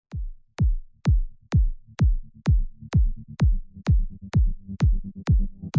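Electronic background music with a steady kick drum beat, about two beats a second, and a low synth line that comes in about a second in and fills out.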